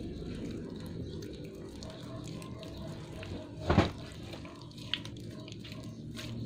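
Freshly activated slime being kneaded by hand: soft wet squishes and sticky smacks, with one louder squelch near four seconds in.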